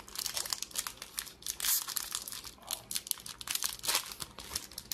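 Foil wrapper of a 2023 Bowman baseball card pack crinkling and tearing as it is peeled open by hand, a dense run of irregular crackles.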